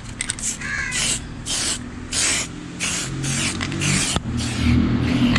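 Aerosol spray paint can spraying in a run of short hissing bursts, about two a second.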